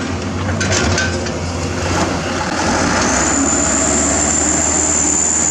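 Heavy construction machinery running with a steady low engine hum. A few clanks come in the first second, and a steady high-pitched whine starts about three seconds in.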